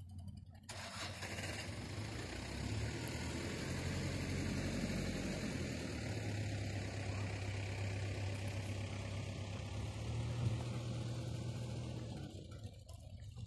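An engine running with a steady low hum under a hiss. It starts abruptly about a second in and dies away near the end.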